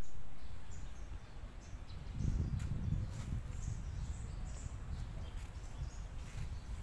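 Outdoor ambience: a low, uneven rumble, strongest for a second or so from about two seconds in, with scattered short high-pitched chirps over it.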